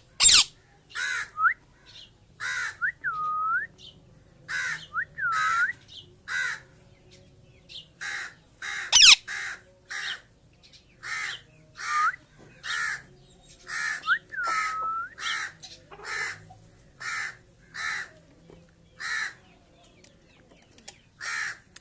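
Rose-ringed parakeet screeching: more than twenty short, harsh squawks, about one a second, several with a dipping whistled note. Two louder, sharper cries come near the start and about nine seconds in.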